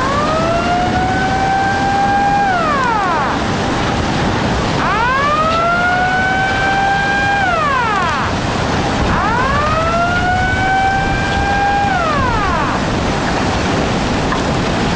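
Outdoor warning siren sounding a tsunami warning: a wail that rises, holds for about two seconds and falls, three times, over a steady rush of noise.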